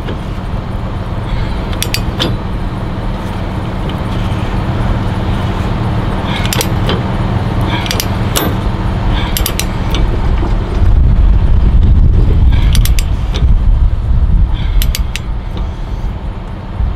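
Steel tie-down chains and their binder hardware clinking and rattling in short bursts every couple of seconds while being fastened, over a steady low rumble.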